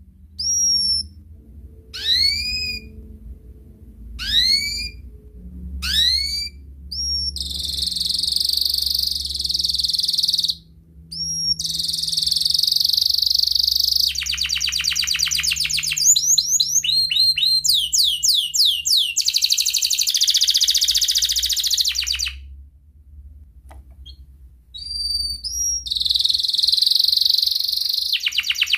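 Domestic canary singing: first a few separate rising whistled notes about every second and a half, then long unbroken passages of rapid trills and buzzy rolls. A short pause comes near the end before a fresh run of fast repeated notes.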